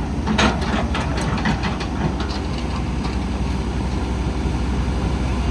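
Excavator's diesel engine running with a steady low drone. A quick run of clicks and knocks comes in the first couple of seconds.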